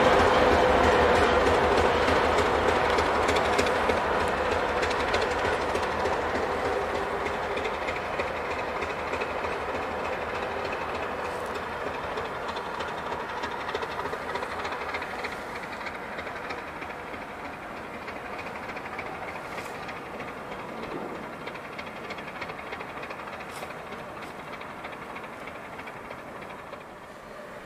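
TGM6A diesel-hydraulic shunting locomotive running light away along the track. Its engine and wheels on the rails fade steadily as it pulls into the distance.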